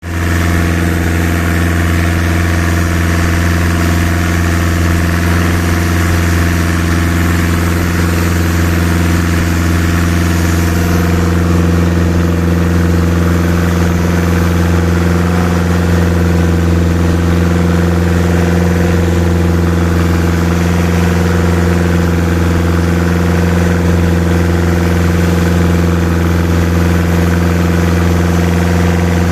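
Boat engine running steadily at an even pitch, with a constant hiss of wind and water over it.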